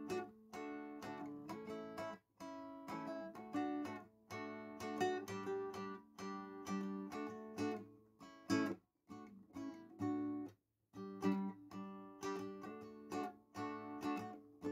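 Background music: strummed acoustic guitar chords in a steady rhythm, with a few brief pauses.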